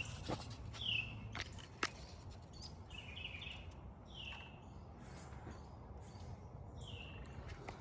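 A bird chirping about four times, each a short call falling in pitch, over a faint steady background hum, with a few sharp clicks in the first two seconds.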